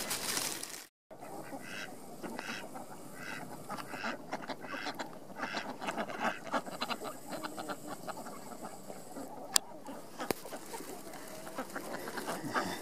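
A flock of domestic ducks quacking over and over, their short calls coming in quick runs. The sound cuts out briefly about a second in, and there is one sharp click near the end.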